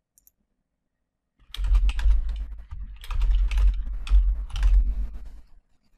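Typing on a computer keyboard: a quick run of keystrokes starting about a second and a half in and stopping just before the end, each with a dull thud under the click. A faint single click comes just after the start.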